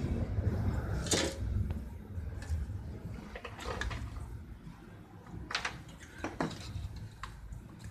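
Sheet-metal casing and heatsink of an HP computer power supply being handled, giving about five light clanks and clicks spread over several seconds. A low rumble in the background fades away in the first two seconds.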